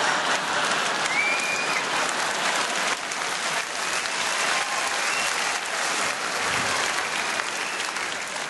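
Large theatre audience applauding and laughing, a dense patter of clapping that eases off a little toward the end.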